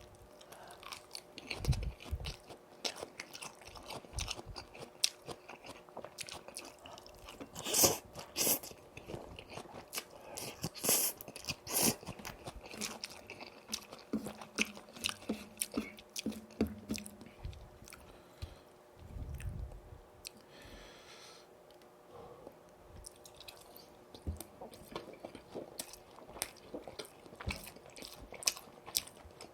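Close-miked biting and chewing of crispy boneless fried chicken (yurinki), the coating crunching in sharp bursts between stretches of wet chewing. The loudest crunches come about eight seconds in and again around eleven to twelve seconds.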